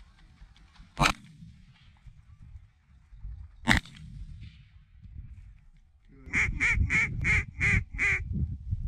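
Two shotgun shots about three seconds apart as hunters fire at incoming geese. Near the end, six quick goose honks in a row, over a steady low wind rumble.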